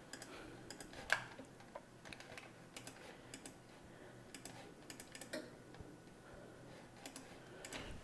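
Faint, irregular clicking of a computer keyboard and mouse, single presses and quick pairs spread through the whole stretch.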